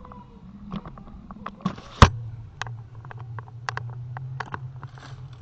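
Handling noise from a hand-held camera: irregular sharp clicks and knocks, one louder knock about two seconds in, with a low steady hum from then on.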